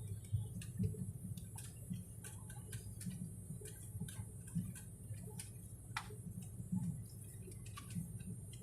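Low hum of an airliner cabin with many light clicks and ticks at uneven intervals.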